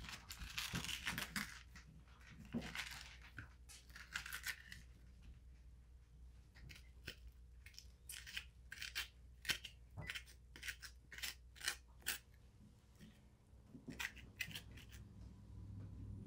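Metal spoon scraping the seeds and stringy pulp out of a halved butternut squash. A few seconds of rough scraping give way to a run of short, sharp scrapes and clicks, about two a second.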